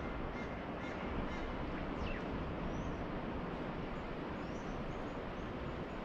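Birds calling at dawn, with short high chirps and a single falling whistle about two seconds in, over the steady rush of gentle surf.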